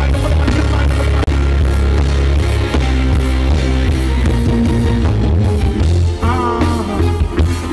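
Loud live band music over a PA, carried by a heavy, steady bass line with instrument parts above it.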